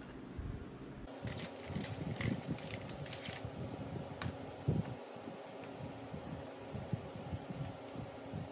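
Light metallic clicks and clinks of stainless worm-drive hose clamps being handled and fitted around a metal can, bunched in the first few seconds, then a few single clicks. A faint steady hum runs underneath from about a second in.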